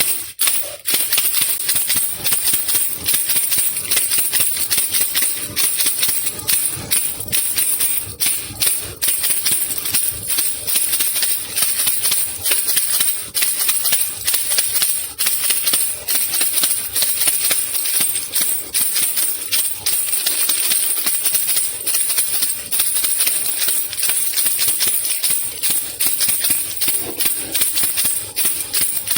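Baby rattle (khulkhula) shaken continuously in a fast, even rhythm: a dense, steady high rattling with no pauses.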